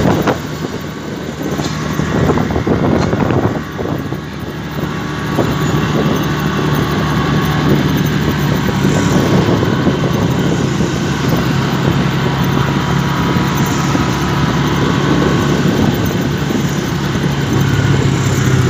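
Motorcycle engine running steadily as the bike rides along, heard from the rider's seat, with a brief dip in level about four seconds in.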